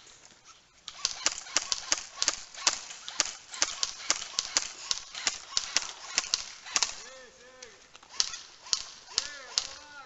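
Airsoft guns firing: a rapid, irregular run of sharp snaps, several a second, from about a second in, with a short lull near the end before the shots resume.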